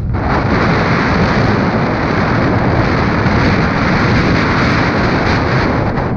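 Loud, steady rush of wind and snow on an action camera's microphone as a snowboard rides fast through deep powder. It cuts in suddenly at the start.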